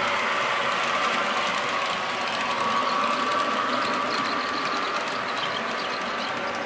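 HO-scale model train (Broadway Limited GG1 with baggage and express cars) rolling past close by: a steady whirring hum with fast, fine clicking of small metal wheels on the rails.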